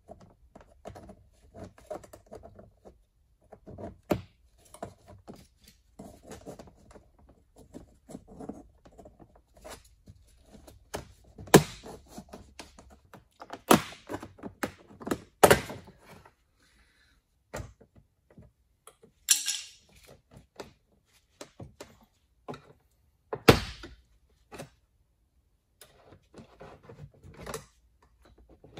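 Plastic trim tools prying a Peugeot 407's door card away from the door: a run of clicks, taps and scrapes of plastic on the panel, with four loud sharp cracks spread through the middle.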